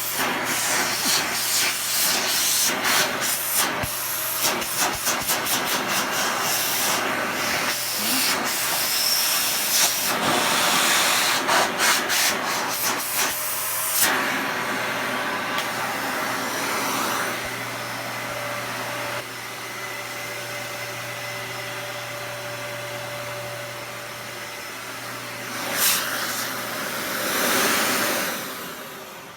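Dyson DC65 Animal bagless upright vacuum cleaner running as it vacuums: a steady hiss of suction over a low motor hum, with many small clicks and crackles through the first half. Near the end the level falls away as it winds down.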